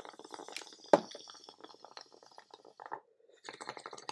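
Water bubbling rapidly in a glass bong as smoke is drawn through it, with the steady hiss of a butane torch lighter held to the bowl. There is one sharp knock against the glass about a second in. The bubbling stops briefly near three seconds, then starts again as he keeps pulling.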